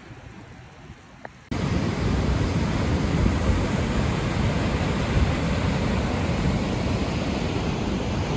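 Steady rushing noise of sea and wind, cutting in suddenly about one and a half seconds in after a quieter stretch.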